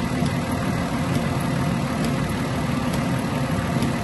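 A 3.0 L V6 engine of a Ford Escape idling steadily under full electrical load (lights, wipers, heater fan and radio all on), with the charging system holding 14.3 volts. Faint light ticks come about once a second over the idle.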